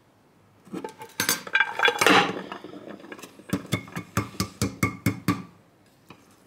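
A glass plate clatters against a stainless steel pot as the pot is turned upside down. Then a hand taps the bottom of the upturned steel pot about nine times in quick succession, loosening the rice inside before the pot is lifted off.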